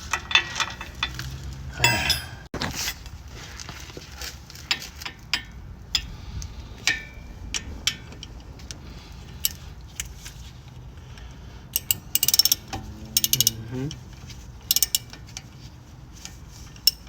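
Socket ratchet clicking in short runs, with metal tools knocking and clinking, as a brake caliper bolt is worked loose.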